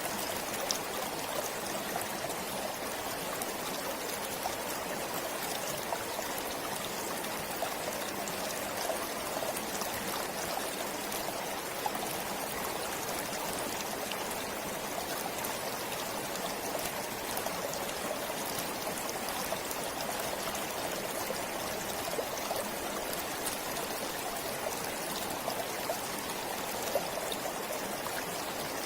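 A stream of water flowing steadily, a continuous even rush with small scattered splashes.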